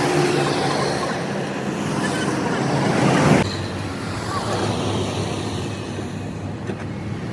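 Road traffic noise, with the sound of a vehicle swelling to its loudest about three seconds in and then cutting off suddenly.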